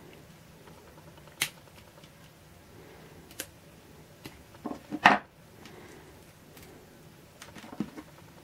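Utility knife and wires being handled while stripping insulation: scattered sharp clicks and light knocks with short scrapes, the loudest a small cluster about five seconds in.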